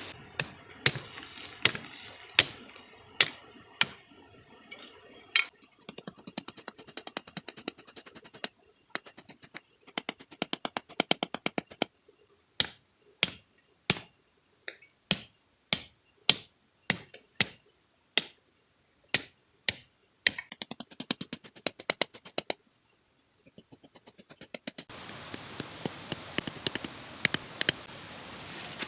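A long series of sharp knocks or taps, irregular at first and then coming steadily about once or twice a second, with a faint hiss behind them.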